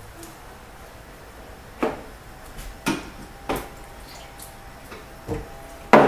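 A drinking glass and other things handled on a kitchen countertop: five sharp knocks and clacks spread through a few seconds, the loudest near the end.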